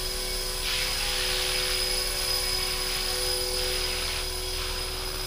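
Blade 330S electric RC helicopter hovering, its rotors and motor giving a steady whine. A hiss swells in about a second in and fades after about four seconds.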